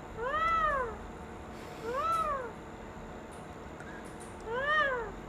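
Pet parrot imitating a cat's meow: three meow calls, each rising then falling in pitch, about two seconds apart.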